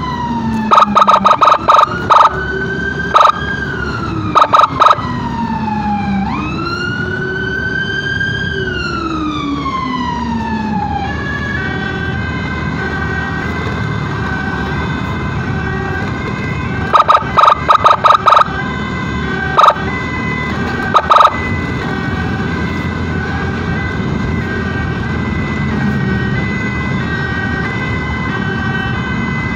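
Electronic emergency siren wailing slowly down and up, then switching about a third of the way in to a steady two-tone hi-lo pattern. Clusters of short, loud horn blasts cut in near the start and again past the middle, over steady road noise.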